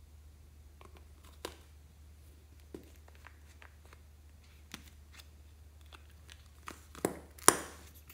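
Plastic hand cream tubes being handled: scattered light clicks and taps as a cap is twisted off, with two sharper taps in quick succession about seven seconds in.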